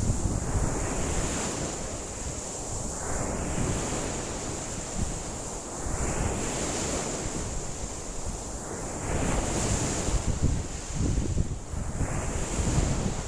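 Rough lake waves washing in against the shore, each swell surging about every three seconds, with strong wind buffeting the microphone in a low rumble.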